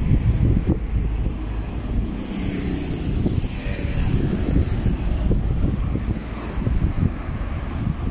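Street traffic with a car passing by about two to four seconds in, under heavy wind rumble buffeting the microphone.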